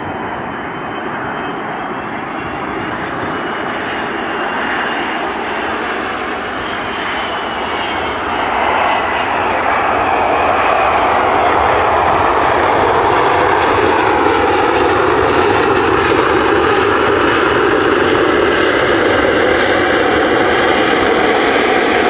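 Jet airliner coming in to land, its engines growing louder as it approaches and passes, with engine whines sliding down in pitch; from about eight seconds in it holds at a steady loud level.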